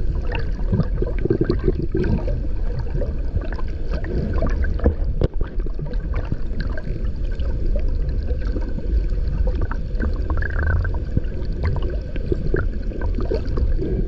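Underwater noise through an action camera's waterproof housing: a steady low rush of water with scattered short clicks and knocks, and one brief higher tone about ten and a half seconds in.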